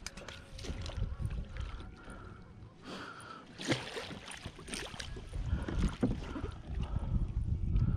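Water splashing as a large hooked fish thrashes at the surface beside a kayak and a landing net is pushed through the water around it. The splashing comes in bursts, one sharp splash a little before the middle and more through the second half, over a low rumble of wind and handling.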